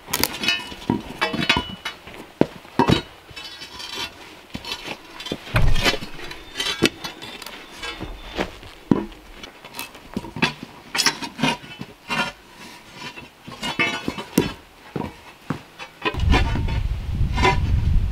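Steel pry bar clinking and knocking against a heavy boulder and a log as the rock is levered and rolled, irregular sharp metallic strikes with a short ring. Near the end a steady low rumbling noise comes in.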